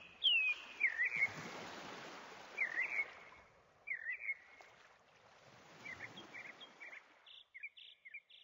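Birds chirping: short calls every second or so, some slurring downward and some in quick pairs, over a soft hiss that fades out near the end.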